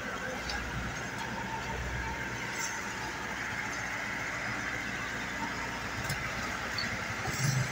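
Crawler-tracked rice combine harvester running steadily as it creeps forward on its tracks over wooden ramps, with a few faint clicks from the tracks and boards.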